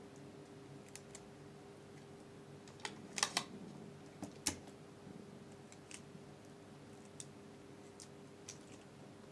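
Clear sticky tape being pulled from a desk tape dispenser and torn off on its cutter: a quick cluster of sharp clicks about three seconds in and a single sharp snap a second or so later. Fainter ticks of fingers handling the coin stack and wire come before and after.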